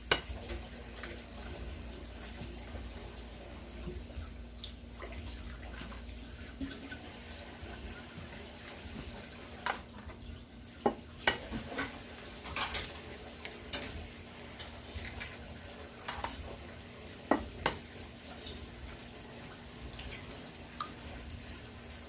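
Eggs being cracked against a bowl and stirred: irregular sharp taps and clinks of shell and utensil on the bowl, most of them in the middle of the stretch, over a low steady hum.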